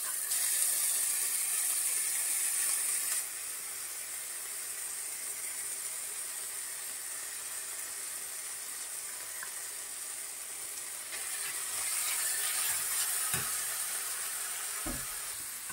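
Sliced onions sizzling in oil in a stainless steel frying pan as mashed garlic and ginger go in, the sizzle louder at first and again later on, with a couple of soft knocks near the end.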